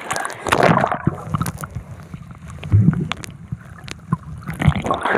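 Seawater sloshing and splashing right against a phone's microphone held at the surface while swimming, with gurgling and irregular low knocks as the phone dips into the water.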